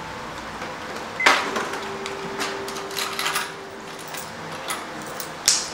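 Electronic cash register's till drawer springing open with a sharp clack about a second in, followed by a faint steady low tone for about three seconds. Coins clink as change is picked out of the till, with a brighter coin jingle near the end.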